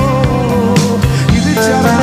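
A male singer holding a note with vibrato near the start, then carrying on, over a live band accompaniment with guitar, in a romantic Spanish-language ballad.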